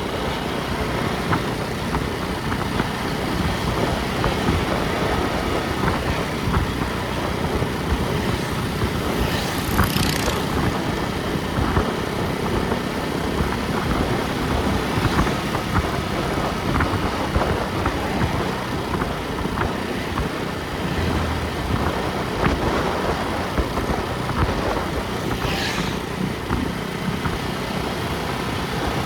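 A vehicle on the move: steady engine and road noise, with two brief hissing swells, about ten seconds in and near the end.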